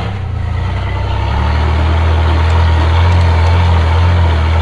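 Rock-crawling buggy's engine running steadily with a deep, even note, growing slightly louder about halfway through.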